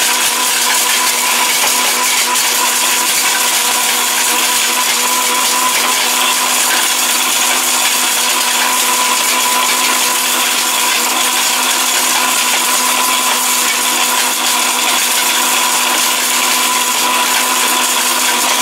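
Electric steel-bush blender running at full speed, grinding hard whole turmeric in its large jar. A steady motor whine sounds over the gritty noise of the pieces being broken down toward powder.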